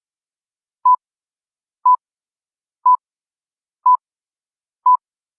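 The BBC's Greenwich Time Signal 'pips': five short, identical high beeps exactly a second apart, counting down to the top of the hour.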